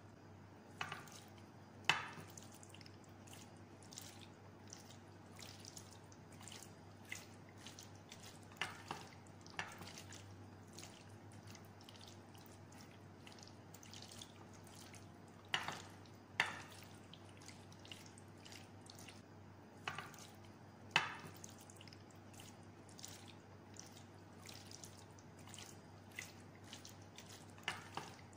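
Knife, then silicone spatula, cutting and lifting set gelatin cubes in a glass baking dish: irregular sharp wet clicks and taps against the glass and the jelly, a dozen or so spread out.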